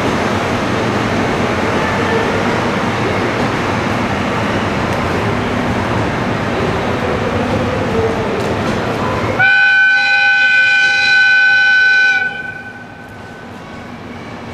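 Locomotive-hauled train rolling slowly out of the station with a steady rumble. About nine seconds in, the ED76 electric locomotive sounds one long single-pitched whistle for nearly three seconds, which cuts off and leaves a faint trailing ring.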